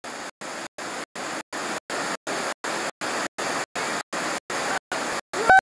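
Steady rushing of stream water, chopped by short regular dropouts nearly four times a second. Near the end a person gives a loud shout that rises in pitch.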